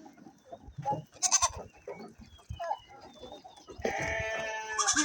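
Goat bleating: a long, wavering call near the end, running straight into a second, louder one.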